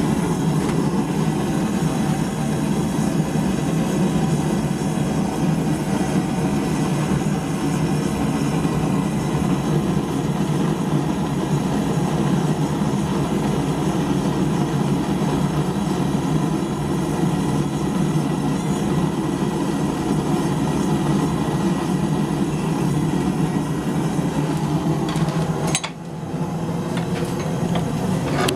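Blacksmith's forge running with a steady low rushing noise while a heated bar is being twisted. The noise dips briefly with a click near the end.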